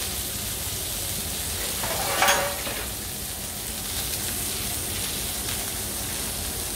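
Foie gras slice and duck and beef burger patties sizzling steadily in their own fat on a hot griddle plate. A brief louder sound stands out about two seconds in.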